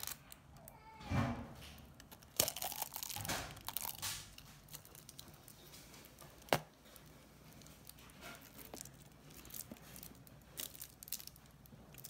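LocknLock glass food container and its plastic lid being handled: scraping and rubbing as the lid is fitted, then one sharp click about six and a half seconds in as the vent button on the lid is pressed, with a few lighter ticks after.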